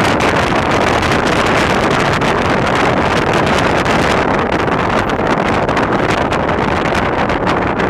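Loud wind noise on the microphone of a camera in a moving car, a steady rushing that covers the sound of the vehicle.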